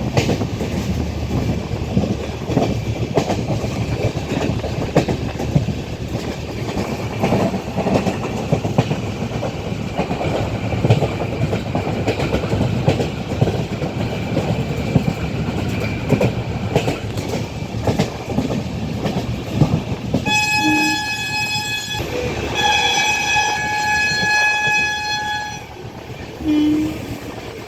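Train running with a steady rumble and clickety-clack of wheels over the rail joints. About twenty seconds in the locomotive horn sounds twice, a short blast and then a longer one of about three seconds.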